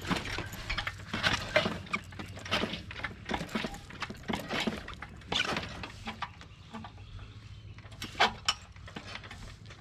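Metal clanks and clicks of a lawn mower jack being worked to raise the mower, coming irregularly several times a second over a steady low hum.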